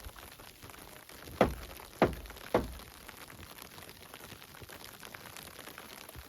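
Three sharp knocks about half a second apart, over a faint steady hiss.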